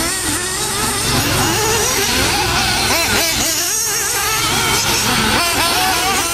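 Several 1/8-scale nitro off-road buggy engines, an Xray 808 among them, revving up and down as the buggies race. Their high whines rise and fall and overlap.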